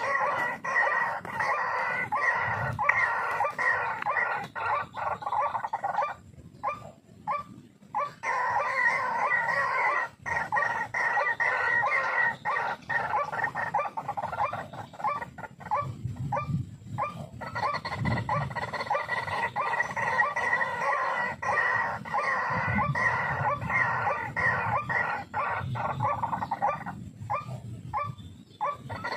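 White-breasted waterhen (ruak-ruak) calls, a dense run of rapidly repeated croaking notes, with brief breaks about six seconds in and near the end.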